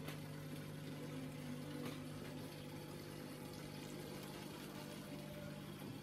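Fish tank pump running: a steady low hum with the wash of bubbling water.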